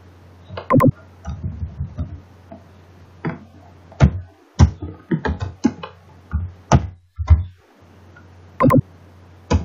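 Computer keyboard keystrokes, single clicks and short runs at an uneven pace, over a steady low hum.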